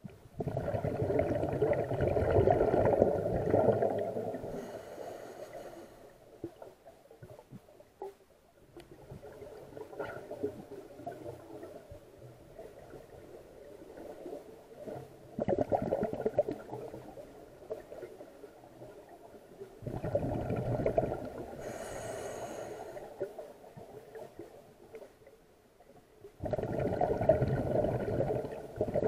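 Scuba diver breathing through a regulator underwater: four loud gurgling bursts of exhaled bubbles, the first the longest, with fainter sound between them.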